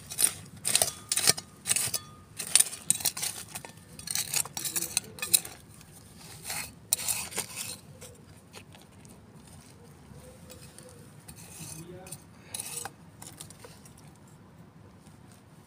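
Small metal hand shovel scraping and scooping gritty soil, with a quick run of scrapes and clinks against small stones. The strokes thin out after about eight seconds, with one more sharp scrape a few seconds before the end.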